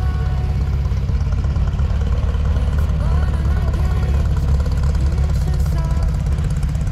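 Engine of a Porsche 356 Speedster-style roadster running at low speed as the car rolls by, a steady low rumble. People are talking in the background.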